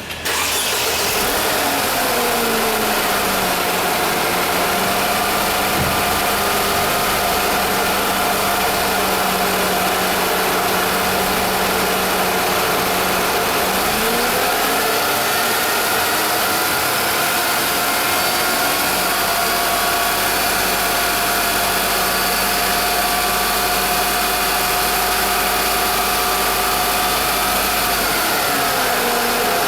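Car engine running with the power steering pump making an abnormal whining noise, a steady mix of tones that sags in pitch and comes back up a few times. The noise is the sign of a fault in the power steering pump.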